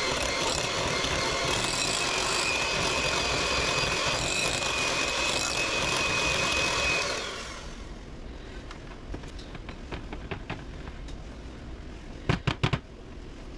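Electric hand mixer running steadily with a whine as its beaters whip softened cream cheese in a glass bowl, switched off about seven seconds in. Then light scraping of a spatula in the bowl, and a quick run of four sharp knocks near the end.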